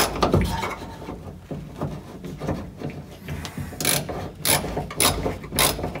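Ratchet wrench on a seatbelt anchor bolt in a car's door pillar, its pawl clicking in strokes about every half second from the second half on. The bolt is about a quarter inch short and is being worked to catch the threads.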